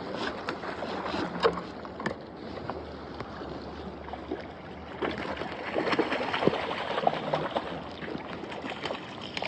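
River water rushing and splashing, with scattered small clicks and knocks throughout.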